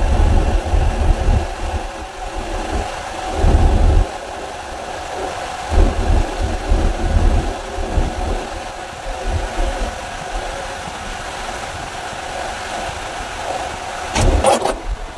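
Mercedes truck engine idling with a newly installed under-dash air-conditioning unit running, a steady hum throughout. Irregular low rumbles come and go in the first half.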